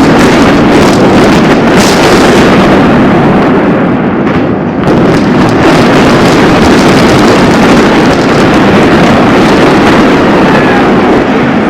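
Loud, continuous rumbling noise of a structure demolition, with a few sharp cracks in the first couple of seconds and a short lull about four seconds in.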